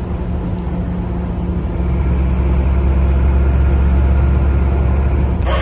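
Steady engine and road drone heard inside a moving truck's cab. About two seconds in, a deeper, louder low drone joins it and holds.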